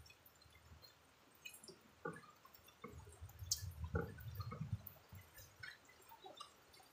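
People eating rice and chicken with their hands: small squishes and clicks of fingers working food on plates, with chewing, and a few louder knocks about three to four seconds in.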